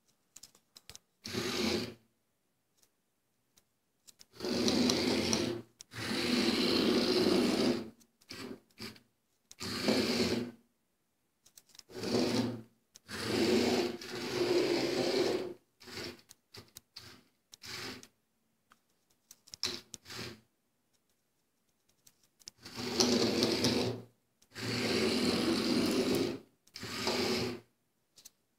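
The small DC gear motors of an Arduino robot car whining in about a dozen short bursts, each starting and stopping abruptly as the car is driven forward and turned, each lasting up to about two seconds. A few faint clicks fall in the gaps between bursts.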